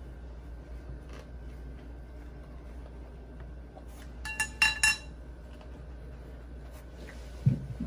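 Tableware clinking: three quick ringing clinks about halfway through, then a dull low thump near the end, over a steady low hum.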